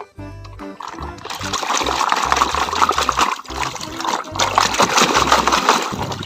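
Water sloshing and splashing as a muddy plastic toy dump truck is swished back and forth through a pool of water to wash it, starting about a second in. Background music with a bass line plays underneath.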